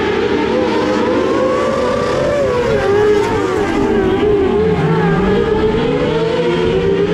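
Several small open-wheel dirt-track race cars running together, their engines' pitches rising and falling against one another as they come past. One engine drops low about five seconds in and then climbs again.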